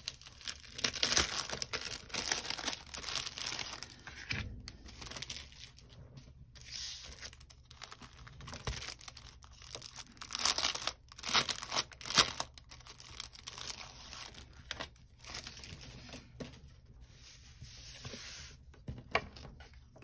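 Clear plastic cellophane sticker sleeves crinkling and rustling in irregular bursts as they are opened and the planner sticker sheets inside are handled. The loudest crinkles come near the middle.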